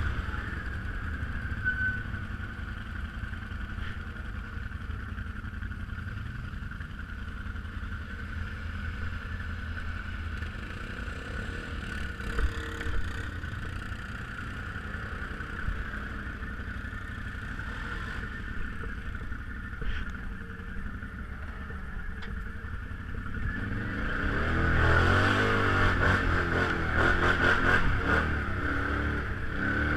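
Off-road vehicle engine running steadily at low revs, then revving harder for the last few seconds, its pitch rising and falling.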